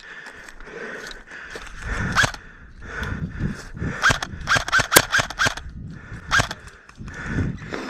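Airsoft gun firing: single sharp shots about two seconds in and near the end, and a quick string of about six shots, some five a second, around the middle, each with a short ringing snap.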